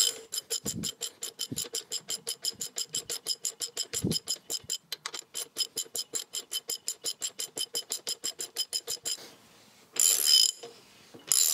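Socket ratchet wrench clicking as it turns the nut on the threaded rod of a homemade bush puller, drawing a new rubber bush into the rear axle carrier with little effort. A fast, even run of clicks, about six a second, stops about nine seconds in, and two louder rasping bursts of ratcheting follow near the end.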